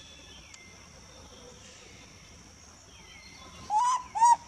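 Baby long-tailed macaque crying: two short, loud, high-pitched cries close together near the end, the distressed calls of a sad infant monkey.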